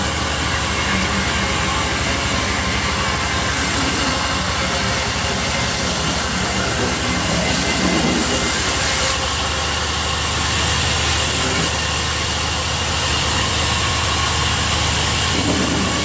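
Sawmill saw running and cutting through wood: a loud, steady machine noise, a dense hiss over a fast, even deep pulsing.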